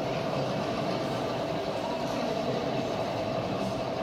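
Model diesel freight train running along layout track: a steady hum with a steady high whine, over even background noise.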